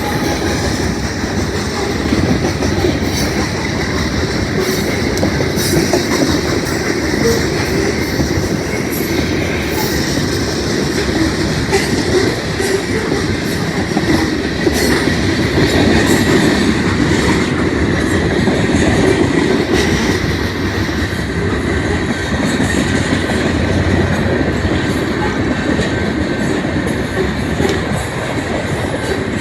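Loaded coal train's freight cars rolling past at a steady pace: a continuous heavy rumble of steel wheels on rail, with rapid clicks over rail joints and a faint, thin wheel squeal.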